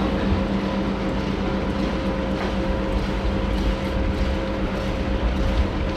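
Chairlift machinery running with a steady hum and low rumble as the chairs move through the station.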